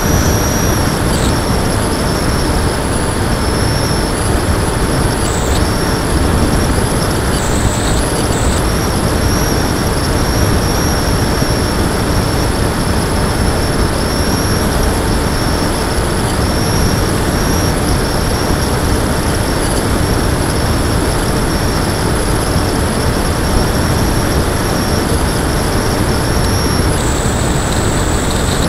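Onboard sound of a Lanyu Raptor RC plane in flight: a steady loud rush of wind and propeller noise, with a thin high whine from its electric motor. The whine drops out briefly a few times and shifts in pitch near the end as the throttle changes.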